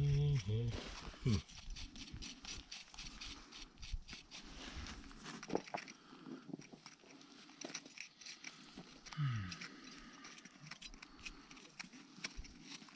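Small metal hand pick scraping and picking at loose sandy sediment against an ironstone boulder: a run of small crunching scratches and ticks. A brief low wavering hum at the very start.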